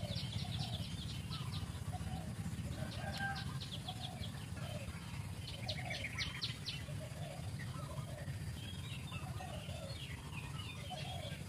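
Background bird calls: three bursts of fast, high rattling trills, with short clucking calls repeating throughout over a steady low hum.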